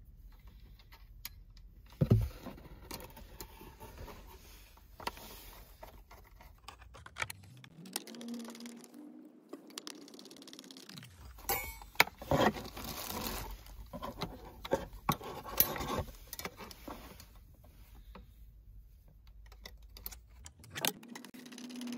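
Small metal clicks and scrapes from handling a steel mounting bracket, screws and a screwdriver while the bracket is screwed onto the side of a car stereo head unit. The clicks come irregularly; the sharpest fall about two seconds in and around twelve seconds in.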